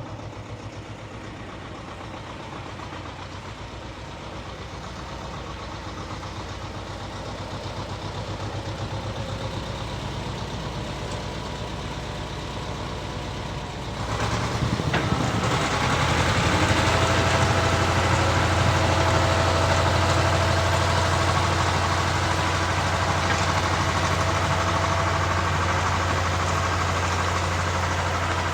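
Engine of a walk-behind rotary tiller running steadily as it works the soil. It grows gradually louder, then about halfway through it jumps abruptly louder, with a deeper steady hum.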